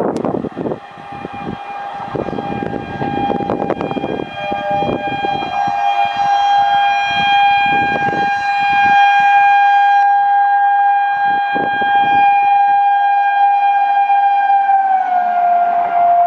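An electric train's horn sounds one long continuous blast, growing louder as the train approaches, its pitch dropping slightly near the end as the train passes. The rumble and clatter of train wheels on the rails run underneath.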